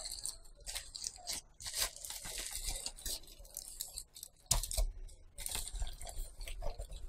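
Thin plastic postal mailer being pulled open and handled: irregular crinkling and tearing of the plastic, with a couple of soft knocks about halfway through.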